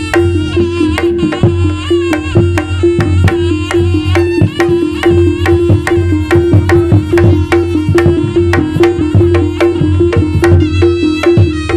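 Live Javanese jaranan gamelan music: kendang hand drums playing rapid strokes over a steady repeating pattern of gongs and pitched metal percussion, with a high wavering melody line on top.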